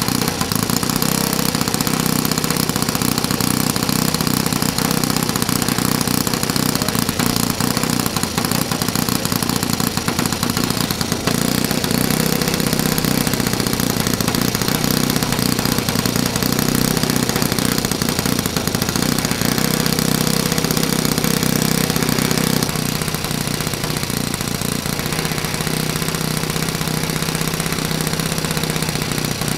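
Saito FA-82 four-stroke glow engine and its propeller running steadily while being run in on its first tank of fuel. About three-quarters of the way through it settles to a lower, quieter speed.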